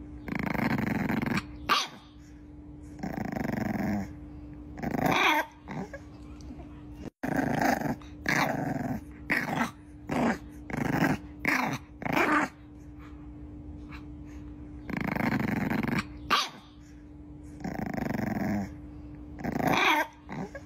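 Bulldog puppy growling in a string of short, irregular bursts, about a dozen in all, a few rising into sharp little yaps. A faint steady hum runs underneath.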